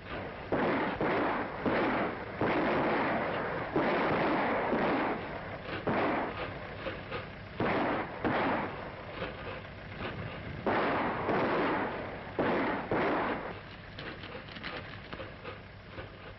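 Revolver gunshots fired in a running gunfight: about a dozen sharp reports, irregularly spaced, each trailing off in a long echo. They thin out and grow fainter near the end.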